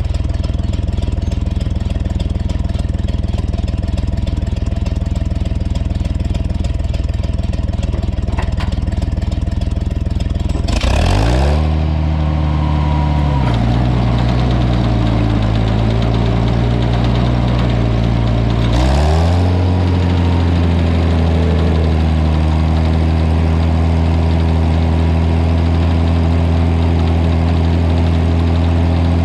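Old tractor engine running steadily. A little past a third of the way in its pitch briefly rises, then drops lower for several seconds; about two-thirds in it climbs back and holds steady again.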